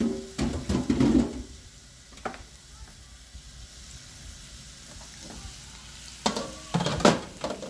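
Spice-rubbed chicken breasts sizzling in a hot cast-iron grill pan. Metal clatter of a sheet pan being handled comes in the first second or so, once more around two seconds in, and again near the end.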